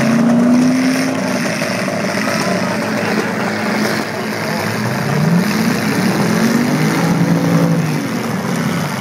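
Demolition derby cars' engines running hard and revving, with an engine note climbing in pitch about halfway through, over a dense mechanical din.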